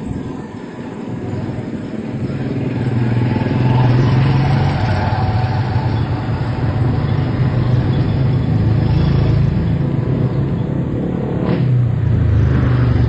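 Small motorcycle engines of tricycles and a motorbike running close by on the street, a steady low engine drone that grows louder a few seconds in. A single sharp click near the end.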